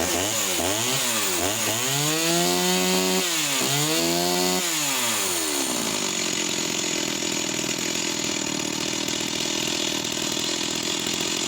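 Vintage two-stroke chainsaw engine revved in quick blips several times, held briefly at high revs, then dropping back to a steady idle about five seconds in.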